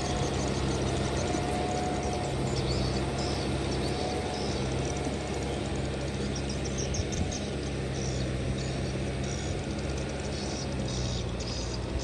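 Kubota M6040 tractor's diesel engine running at a steady speed. Patches of faint high chirping come and go above the engine.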